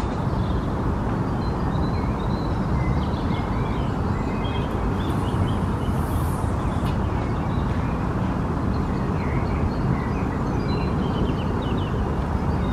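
Steady low outdoor rumble with small birds chirping now and then over it.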